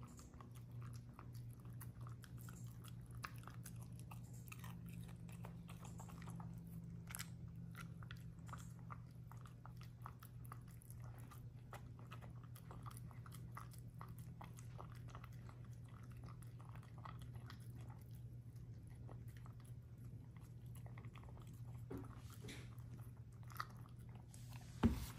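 A dog eating soft food from a hand-held stainless steel bowl: faint, irregular chewing with small clicks, over a steady low hum. A sharp knock sounds near the end.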